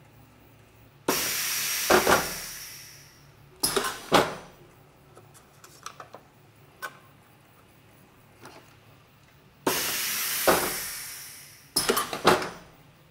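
Small home-built press brake bending a thin sheet-metal back plate, two working cycles. Each cycle opens with a sudden loud hiss that fades over about two seconds, with sharp knocks of the machine around it; the first comes about a second in, the second near ten seconds.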